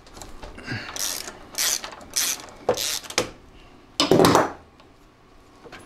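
Socket ratchet clicking in several short bursts as it backs a 13 mm nut off a snowmobile idler wheel bolt, followed about four seconds in by a louder metallic rattle.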